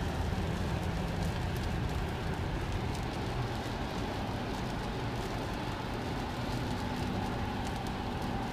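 Steady road and tyre noise inside a Tesla Model S cabin at highway speed on a soaked road, with rain and spray pattering on the windshield and body in scattered ticks.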